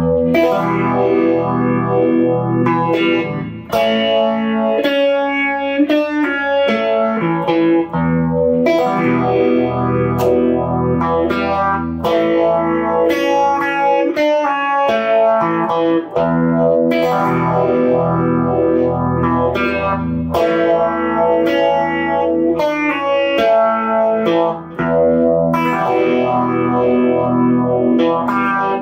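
Electric guitar (single-coil Fender Stratocaster) played through a Fender Twin Reverb amp and effects pedals, with some overdrive, strumming sustained chords in a repeating phrase.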